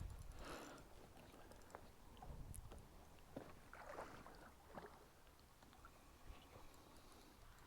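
Near silence, with a few faint rustles and small clicks.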